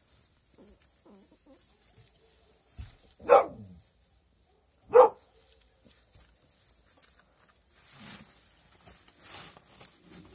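Puppy barking twice, short and sharp, about a second and a half apart, with faint rustling in the hay bedding near the end.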